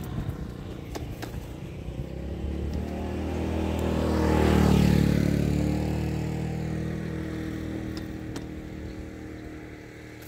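A motor vehicle passing by: its engine sound swells to a peak about halfway through and then fades away.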